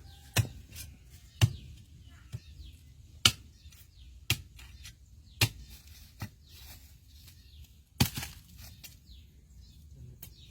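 Irregular sharp chopping strikes, roughly one a second, over a low background.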